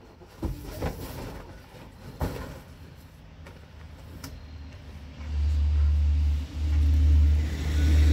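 A few knocks and rustling as items are shifted about in a box, then, about five seconds in, a loud low rumble starts, breaks off briefly and comes back.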